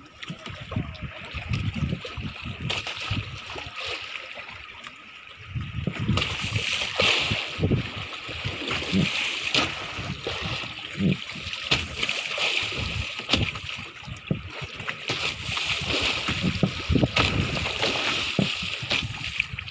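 Sea water splashing and slapping irregularly against the hull of a small wooden fishing boat on choppy water.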